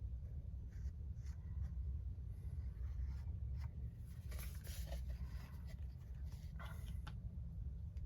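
Light scratching and rubbing strokes of hand work on a hard surface over a steady low hum. The strokes bunch together about halfway through and again near the end.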